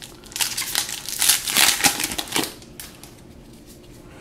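Foil Modern Masters 2017 booster pack wrapper being torn open and crinkled by hand, a burst of crinkling and crackling lasting about two seconds.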